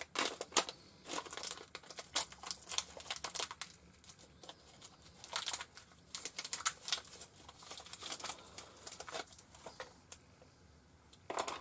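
Packaging crinkling and rustling in short, irregular bursts as a quick-change tool holder for a mini lathe is handled and unwrapped.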